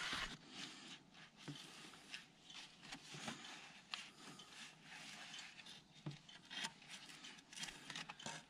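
Faint rubbing and scraping of gloved hands handling parts and the camera under the car, with scattered small clicks and knocks.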